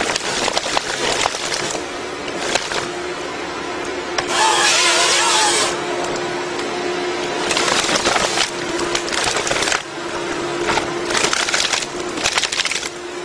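Tree harvester head processing a felled pine: branches cracking and splintering as the stem is worked through the head, over the machine's steady engine and hydraulic hum. There are louder bursts of rushing, crackling noise, the longest about four seconds in, then again around eight and eleven seconds.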